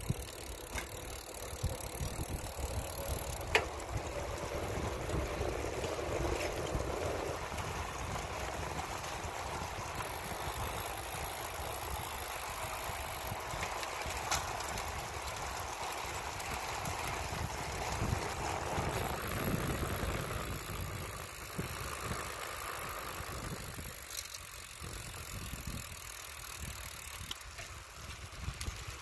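Bicycle towing a dog trailer, rolling along a paved street: steady tyre and wheel noise with wind buffeting the microphone. The noise dips briefly near the end.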